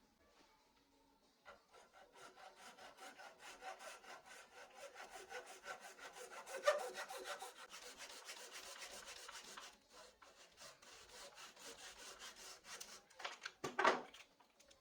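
Sandpaper on a hand-held sanding adapter rubbing wood in fast back-and-forth strokes, with a few louder strokes near the end before it stops.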